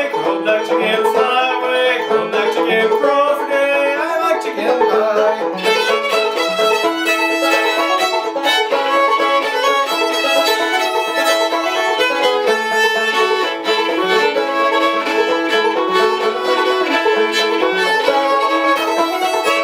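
Old-time duet of clawhammer banjo and fiddle. The banjo plays alone under a man's singing at first; the fiddle comes in about six seconds in and the two play on together.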